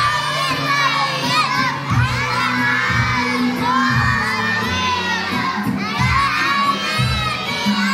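A group of young children singing an Arabic nasheed loudly in unison, close to shouting, over a backing track with steady low notes.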